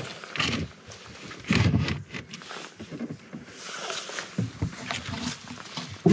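Handling noise from a camera being picked up and moved about at the back of a car: irregular low rumbles and rubbing, with a sharp knock at the very end.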